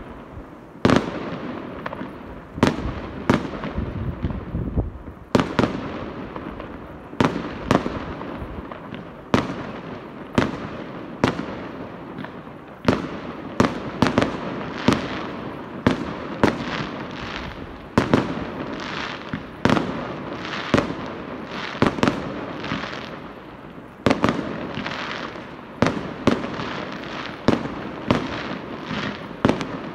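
Aerial fireworks bursting in quick succession: sharp bangs about every second, each trailing off in a rumbling echo with crackle between.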